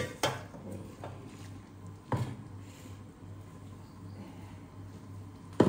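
Steel kitchen utensils knocking on a stone countertop: three sharp knocks, one just after the start, one about two seconds in and the loudest near the end, over a low steady hum.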